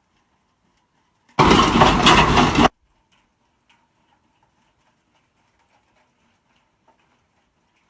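Near silence, broken about a second and a half in by a loud burst of farm machinery noise. The burst lasts just over a second and starts and stops abruptly.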